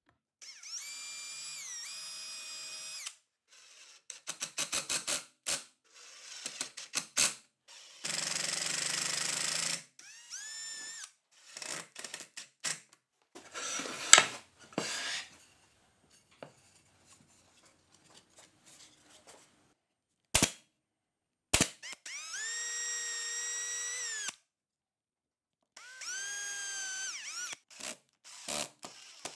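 Cordless drill/driver running in several short runs of a few seconds, each spinning up to a steady whine, as it drills small pilot holes and drives screws into wooden drawer sides. Between the runs come bursts of rapid clicking and two sharp snaps.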